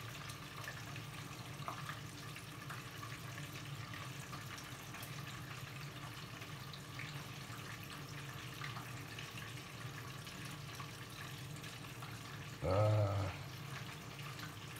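Steady low background noise with a faint hum. About thirteen seconds in comes one short vocal sound.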